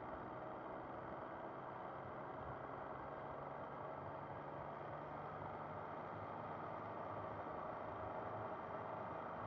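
Motorcycle riding along at steady speed: the engine's running note mixed with wind and road noise, steady and muffled.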